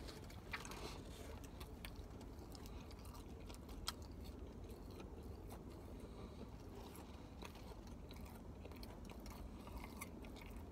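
Faint chewing of a breakfast sandwich, with small mouth clicks throughout and one sharper click about four seconds in.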